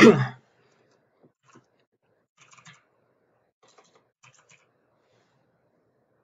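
Faint typing on a computer keyboard: four short runs of key clicks as a short name is typed.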